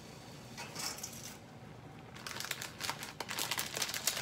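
Noodle packaging crinkling as it is handled: a short crinkle about a second in, then a longer run of irregular crackling through the second half.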